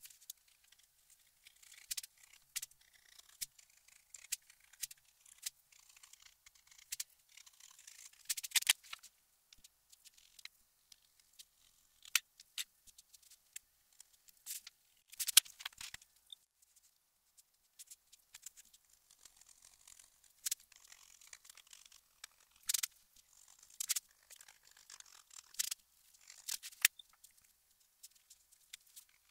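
Thin metal spatula scraping and picking dampened, stuck pastedown paper off the cloth turn-ins of a book cover board: scattered short scrapes and ticks with quiet gaps between, during the removal of stubborn paper remnants before the case is rebuilt.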